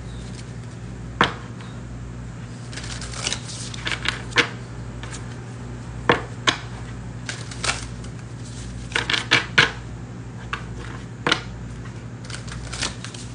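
A deck of reading cards being shuffled by hand, the two halves worked together in sharp card clicks and snaps that come in irregular clusters, over a steady low hum.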